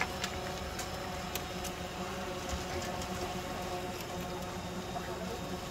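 A steady mechanical hum, like an idling engine, with a few faint sharp clicks over it.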